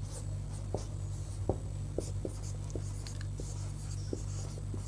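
Marker pen writing on a whiteboard: a scatter of light taps and scratches from the tip as letters are formed, over a steady low hum.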